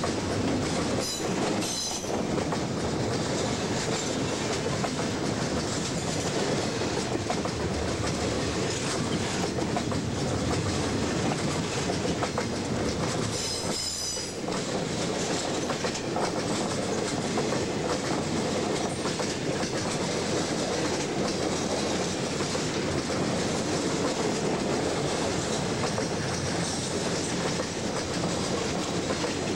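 Railroad cars of a CSX freight train rolling steadily past close by, a continuous clatter of wheels over the rails. Brief high-pitched wheel squeals come about a second in and again near the middle.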